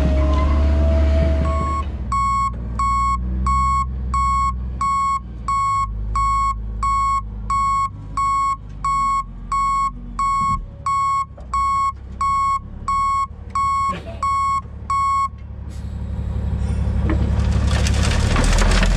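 Dump truck reversing with its backup alarm beeping steadily, a single pitch about 1.7 times a second for some thirteen seconds, over the low rumble of its diesel engine. After the beeping stops, the engine grows louder near the end.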